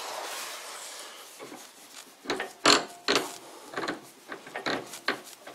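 Steel workpiece being worked onto the lathe spindle's polished register, a tight metal-on-metal fit: a short scraping rub at first, then a run of light, irregular knocks and clicks.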